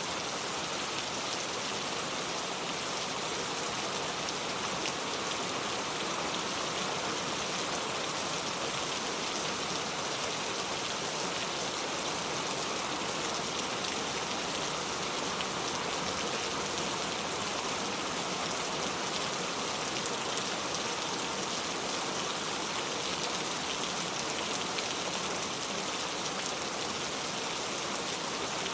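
Steady rain falling, an even hiss of many drops that does not let up or change.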